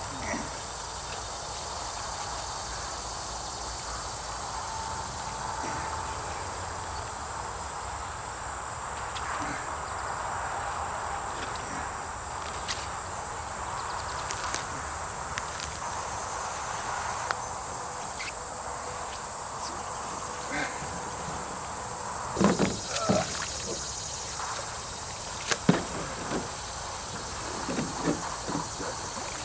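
A steady outdoor chorus of insects chirping, with a few short knocks and thuds near the end from digging and pulling at the ground by hand.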